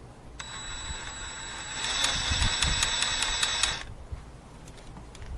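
DeWalt DCS331B cordless jigsaw run briefly without cutting: the motor whines, gets louder about two seconds in, and makes a regular clicking before it stops abruptly. The owner takes the clicking for a sign that the blade won't stay seated in its clamp and on the roller guide.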